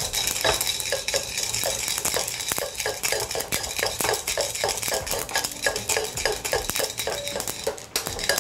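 Coconut-shell spoon scraping and grinding dry-heated mustard seeds against the bottom of an aluminium pan to crush them. The strokes are rhythmic, about two or three a second.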